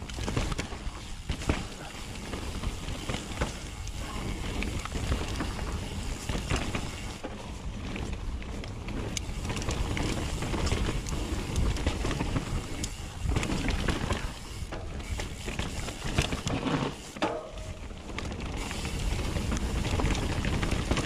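Nukeproof Mega 290 mountain bike descending a rough downhill trail: a steady rush of tyres over dirt and rock with frequent sharp rattles and knocks from the bike.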